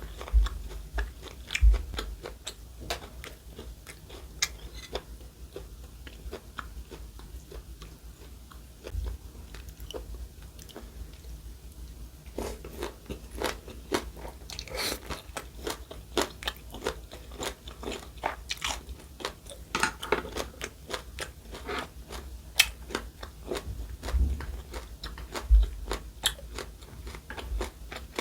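Close-miked eating sounds: food being bitten and chewed with many short crisp crunches, busier in the second half.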